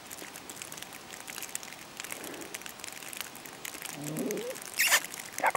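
Steady fine crackling from a plastic sheet covering the camera's microphone. About four seconds in comes a faint, muffled low cry that rises in pitch, followed by two sharp rustles of the plastic near the end.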